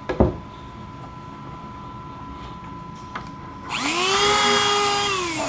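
Small high-speed electric rotary tool, Dremel type, switched on about two-thirds of the way in, whining up to speed, running briefly, then winding down at the end. A single click comes just after the start.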